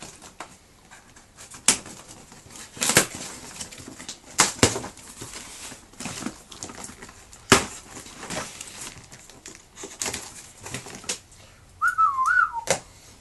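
Packing tape on a cardboard box being slit and pulled away, and the cardboard flaps folded open, giving a series of sharp rips and scrapes. Near the end comes a brief wavering whistle.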